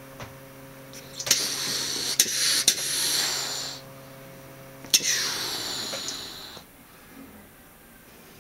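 Domestic cat hissing twice, each hiss opening with a sharp spit. The first lasts about two and a half seconds, the second under two.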